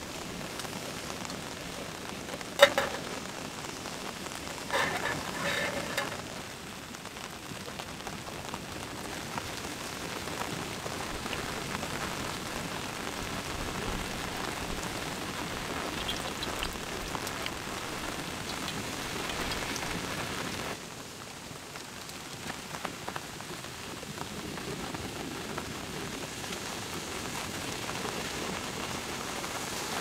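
Steady rain falling, with one sharp knock about two and a half seconds in and a brief clatter around five seconds.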